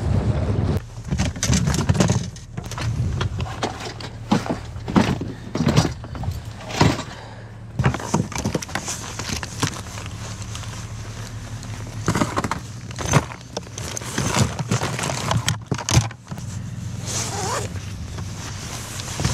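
Irregular knocks and clatter of gear being handled, over a steady low hum.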